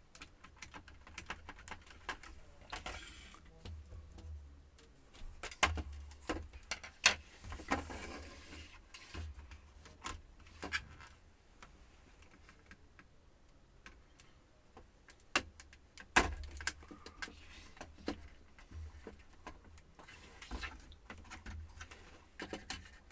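Hands handling the opened Compaq F700 laptop's plastic case and motherboard during disassembly: irregular small clicks and taps, with a few brief scrapes and rustles.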